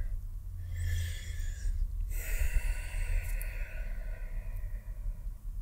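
A man breathing audibly through nose and mouth: a short breath about half a second in, then a longer breath of about three seconds.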